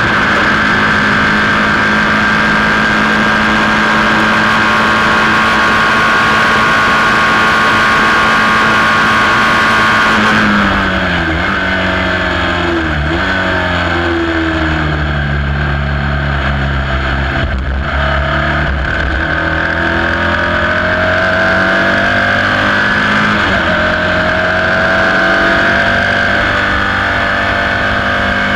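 Onboard sound of a Sports 2000 racing car's engine, first held at high revs on a straight with strong wind rush. About ten seconds in the driver lifts and the revs drop in several steps as it is shifted down for a corner, then the engine note climbs steadily again as the car accelerates away.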